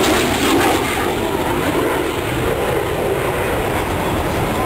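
Airplane engine noise from an aircraft flying overhead: a loud, continuous sound with a faint sliding pitch.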